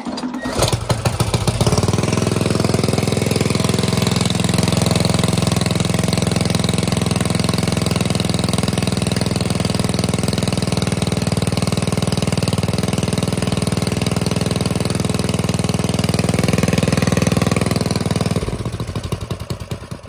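Small single-cylinder mini bike engine, just fitted with a 22 mm Mikuni carburetor, catching within the first second and running steadily at idle while its carburetor screw is adjusted. It dies away in the last couple of seconds.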